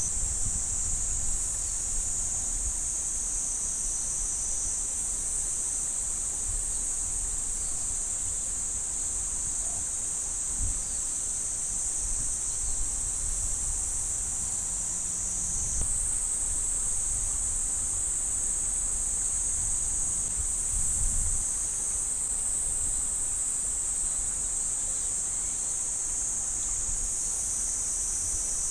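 Steady, unbroken high-pitched drone of an insect chorus from the summer fields and woods, with a low, uneven wind rumble underneath.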